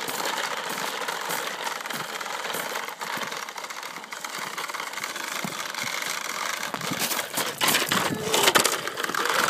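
Plastic toy push lawnmower rolling over a rough gravel driveway, its wheels and mechanism making a steady rattling clatter, with louder knocks near the end.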